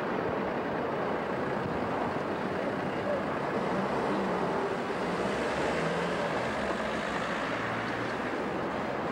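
Steady city street traffic: a continuous wash of car and bus engines, with a low engine drone wavering in pitch around the middle.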